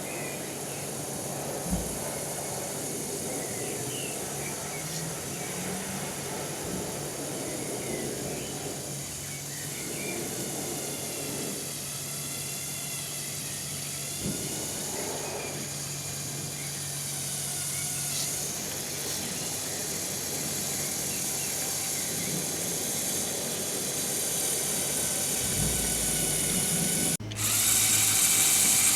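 Small electric motors of a remote-controlled Lego Technic off-road model whining as it drives, the whine rising and falling in pitch with the load. The sound changes abruptly and gets louder near the end.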